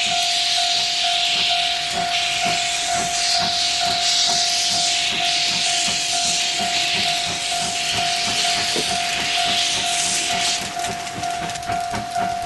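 Steam locomotive sound effect: a loud, steady hiss of escaping steam over a steady held tone and faint rapid clicks. The hiss lets up about ten and a half seconds in, leaving the tone and clicks.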